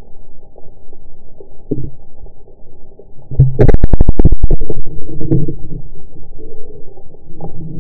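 Rubber-band speargun fired underwater: a loud burst of rapid clattering clicks lasting about a second, starting about three and a half seconds in, over the muffled underwater rumble of the camera housing.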